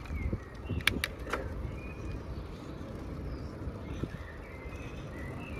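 Wind rumbling on the microphone and tyre noise from a bicycle rolling along a paved path, with a couple of sharp clicks about a second in and faint high chirps.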